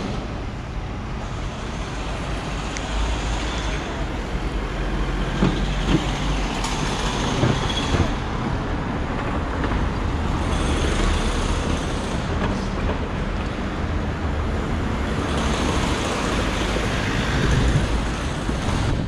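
Road traffic on a city street: motor vehicle engines running and passing, with a steady low engine hum. Near the end a van passes close by.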